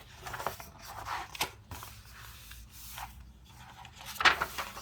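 Paper rustling and rubbing as a picture book's pages are handled and turned, in short scratchy bursts, the loudest about four seconds in.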